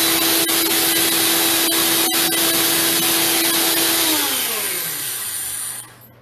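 Countertop personal cup blender running at full speed with a steady motor whine. About four seconds in the motor is released: its pitch falls as it spins down, and it stops just before the end.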